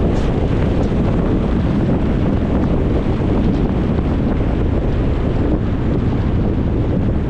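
Steady road and wind noise of a car driving: an even rushing rumble, heaviest in the low end, that does not change.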